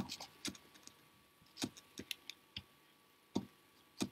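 Faint, scattered clicks and light taps from hands braiding three strands of macramé cord over a pinned work cushion, coming irregularly every half second or so.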